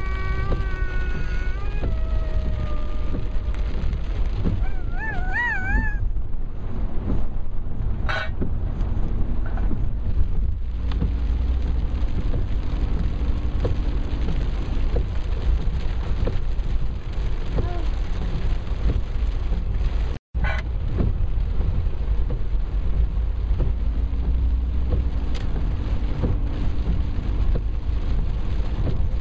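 Steady low rumble of a car driving on a rain-soaked road, heard from inside the cabin, with the hiss of tyres on wet tarmac and rain on the windscreen. A brief wavering whine comes near the start and again around five seconds in, and the sound cuts out for a split second about two-thirds of the way through.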